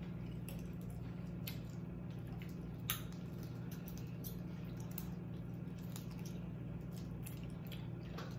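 Fingers peeling the shell off a boiled, sauce-coated shrimp: small wet squishes and clicks, with one sharper snap about three seconds in, over a steady low hum.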